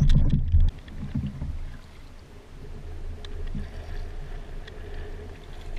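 A canoe moving down a shallow river: water rushing and lapping along the hull, with wind rumbling on the microphone.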